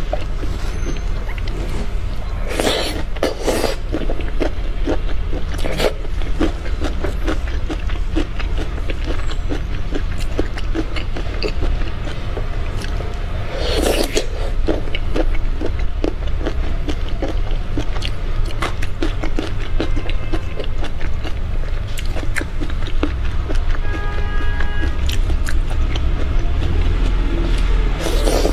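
Close-miked wet eating sounds of shrimp in chili sauce: many small mouth clicks and chewing, with louder slurps about 3 seconds in, about 14 seconds in and at the end. Background music runs underneath.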